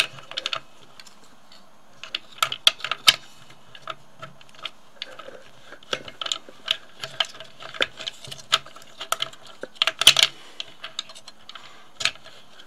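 Irregular small clicks and taps of the black plastic parts of an Agfa Rondinax daylight developing tank as a 35mm film cassette is fitted into its cassette chamber, with a bunch of louder clicks about two seconds in and again near ten seconds.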